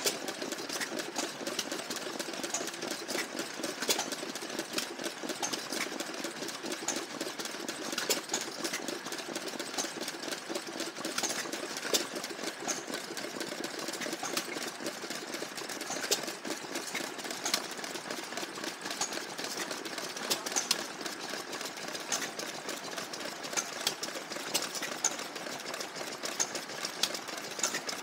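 Several vintage stationary engines running at once: a steady, dense mechanical clatter with many sharp clicks.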